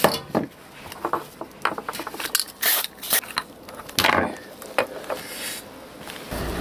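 Plastic heater-hose coupler being handled and moved about on a wooden bench: scattered sharp clicks, knocks and light scrapes. A steady low hum comes in near the end.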